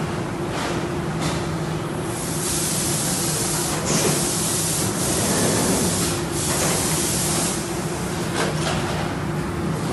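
Oval screen printing machine running with a steady hum and a few clacks. About two seconds in, a loud hiss starts and lasts about five seconds, broken twice.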